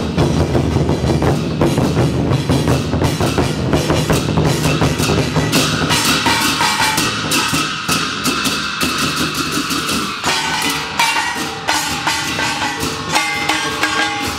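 Chinese folk percussion: a large wooden barrel drum beaten in a fast, dense rhythm together with clashing hand cymbals. A steady ringing holds for several seconds in the middle.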